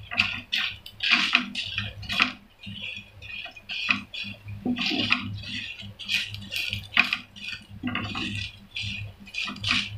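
Spatula stirring and scraping fried onions, dried red chillies and roasted spices around a frying pan, in irregular scrapes and clinks against the pan.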